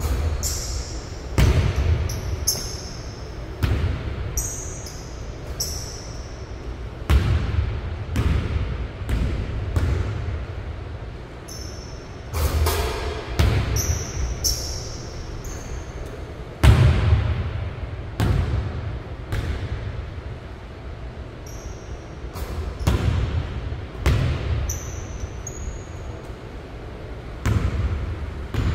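A basketball bouncing on a hardwood gym floor and striking the rim and backboard, a thud every second or two, ringing in a large hall, with short high squeaks between the impacts.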